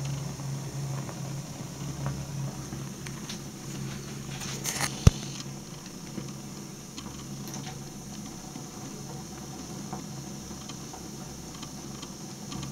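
Leather ankle boot burning in flames, with sparse soft crackling and ticking over a steady low hum. A brief rustle and one sharp click come about five seconds in.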